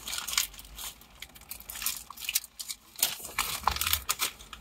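Paper burger wrapper crinkling and takeout packaging rustling, with irregular crackles and clicks from handling the food, and a brief soft thump just before the end.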